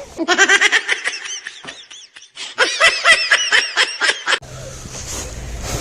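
High-pitched laughter in rapid 'ha-ha' bursts, in two runs with a short break about two seconds in. It stops abruptly a little over four seconds in and gives way to steady outdoor background noise.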